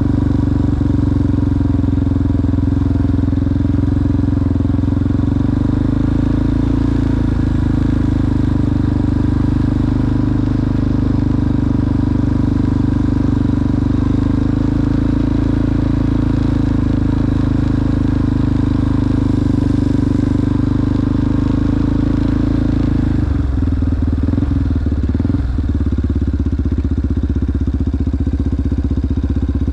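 ATV engine running steadily while riding, with a strong even drone; about three quarters of the way through the engine note breaks up and changes, then settles again.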